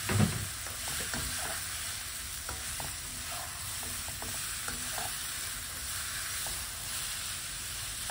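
Brown shimeji mushrooms sizzling in oil in a non-stick wok while a spatula stirs and scrapes them around the pan, with small taps of the spatula against the pan and a knock just after the start.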